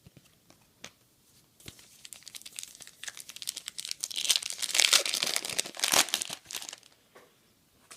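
A trading card pack's wrapper being torn open and crinkled by hand, a dense crackling that builds from about two seconds in, is loudest in the middle and stops about a second before the end.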